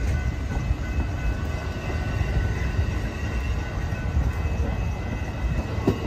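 Amtrak Superliner bilevel passenger cars rolling past at close range: a steady rumble of the wheels on the rails, with the last car going by near the end.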